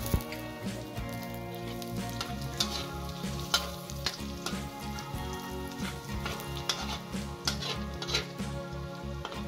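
Chopped garlic sizzling in hot oil in a wok, with the spatula scraping and clicking against the pan as it is stirred. Background music with a steady low beat runs underneath.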